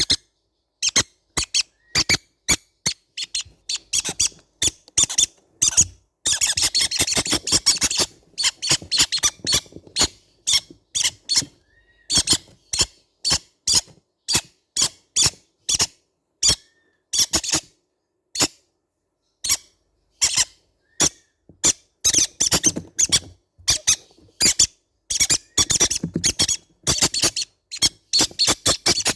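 Baby green-cheeked conures making short, sharp squeaking calls one after another, with denser runs of chattering about six seconds in and again near the end.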